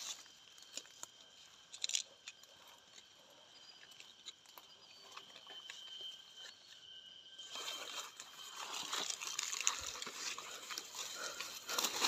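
Faint rustling and crunching in dry leaves and undergrowth, sparse at first and growing busier and louder from about seven and a half seconds in, over a thin steady high tone.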